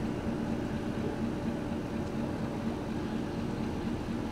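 Steady background hum and hiss with a faint low drone, no distinct events.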